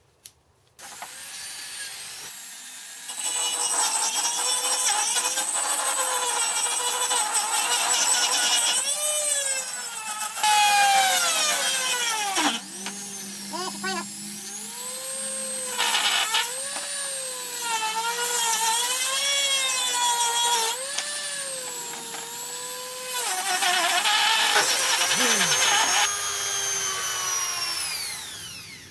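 Small power tool with a sanding drum running and sanding a taper into the tunnel of a milling-machine pattern. Its pitch wavers, dipping and recovering as it is pressed into the work, and it winds down near the end.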